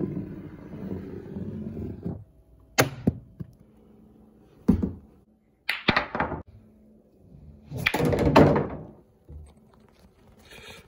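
Billiard balls rolling with a low rumble along a wooden rail for about two seconds, then a series of sharp knocks and clacks as balls strike wood and each other, with a longer rolling rumble about eight seconds in.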